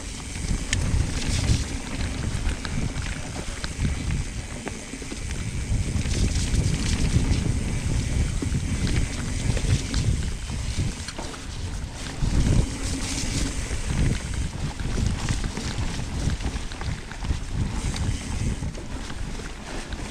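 Trek Fuel EX 9.8 29 full-suspension mountain bike riding downhill on a wet trail: wind buffeting the action camera's microphone over tyre noise and scattered clicks and rattles from the bike.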